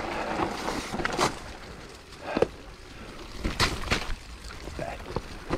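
Mountain bike riding down a stony trail: tyres rolling and scrabbling over rock, with a few sharp knocks and rattles from the bike.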